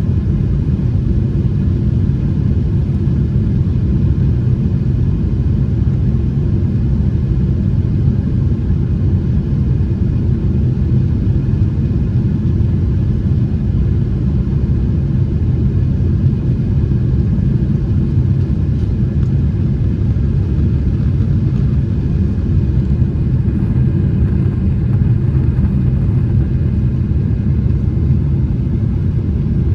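Steady low rumble of a Boeing 777-300ER's GE90 engines and airflow, heard inside the passenger cabin from a window seat, with a few faint steady whining tones above it.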